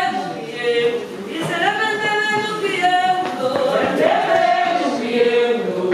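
A woman singing a slow line of a song unaccompanied, with long held notes.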